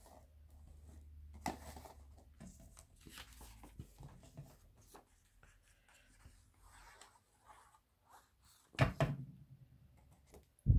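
Faint handling of a paper-covered card box on a cutting mat, with a couple of quick knocks about nine seconds in.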